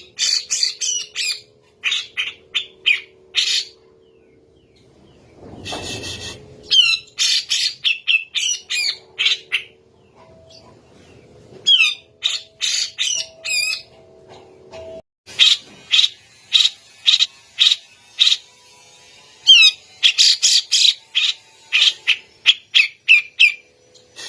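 Grey-cheeked bulbul (cucak jenggot) calling in fast runs of short, harsh notes, several phrases broken by pauses of a second or two. A brief noisy rustle about six seconds in.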